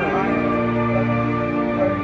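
Marching band music: a slow, soft passage of long held chords.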